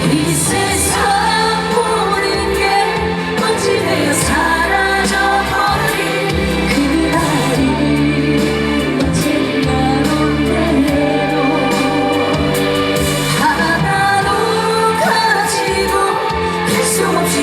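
Live music: a woman singing a slow trot ballad over an amplified band backing track.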